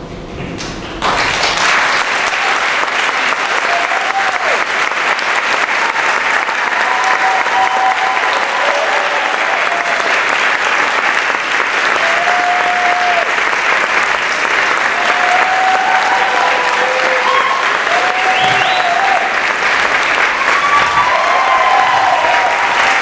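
Audience applauding, with scattered cheers and whoops. The applause starts suddenly about a second in, just as the music stops.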